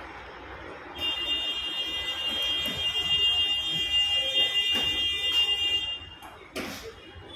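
A loud, steady electronic warning tone of several pitches at once. It starts abruptly about a second in, holds for about five seconds, then stops, and a short knock follows near the end.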